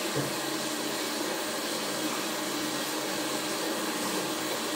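Tap water running steadily into a sink during handwashing.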